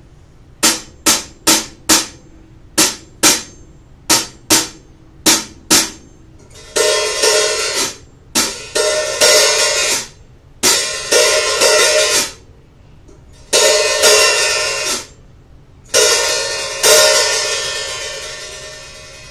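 German-made hi-hat cymbals with a wavy-edged bottom cymbal, struck: first a run of short, tight closed strikes, then several longer open washes, each cut off sharply as the cymbals close. The last one is left to ring and dies away slowly.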